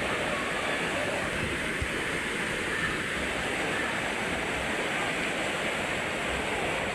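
Waterfall: the steady rush of falling water, even and unbroken.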